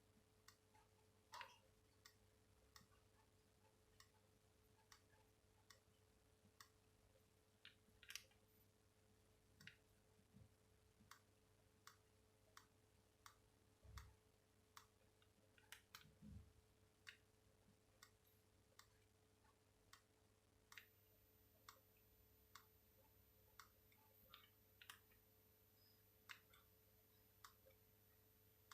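Faint clicks of a Samsung SGH-X460 mobile phone's keypad buttons being pressed, about one every three-quarters of a second, over a faint steady hum.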